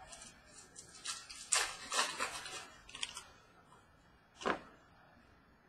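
Trading cards being handled and flipped through: a quick run of papery clicks and swishes over the first three seconds, then one more sharp swish about four and a half seconds in.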